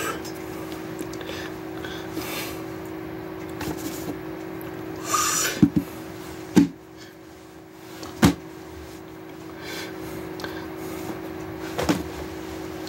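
Handling noise from a Bible being picked up and moved by hand: a brief rustle about five seconds in and four sharp knocks spread through the rest, over a steady low hum.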